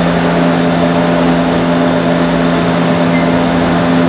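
A heater running steadily: a loud, even machine drone with a low hum underneath.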